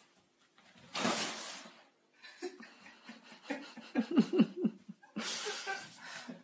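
A person laughing in a quick run of short bursts, loudest a little past the middle. A louder hissing rustle comes about a second in and another near the end.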